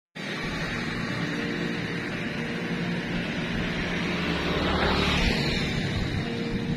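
Road traffic with steady engine noise, and a vehicle passing close, louder about five seconds in.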